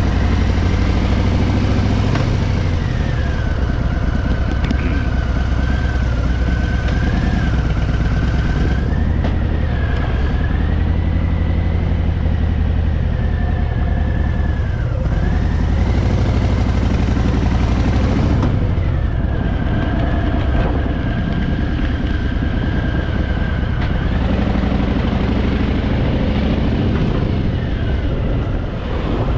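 Harley-Davidson Fat Boy's V-twin engine running steadily as the motorcycle is ridden, a continuous low rumble with a faint high whistle that wavers in pitch.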